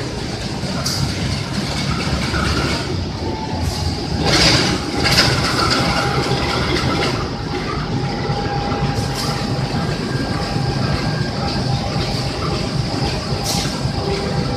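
CC203 diesel-electric locomotive rolling slowly past at close range, its engine rumbling steadily with wheel-on-rail noise and a few clanks. A thin steady whine, typical of brakes on a train slowing into a station, joins about four seconds in.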